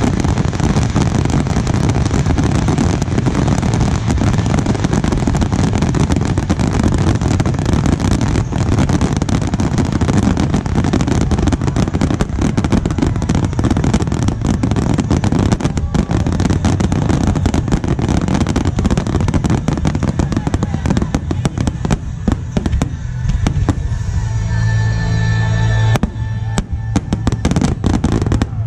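Grand-finale barrage of aerial firework shells: a continuous run of rapid, overlapping bursts and booms. It thins a little in the last few seconds.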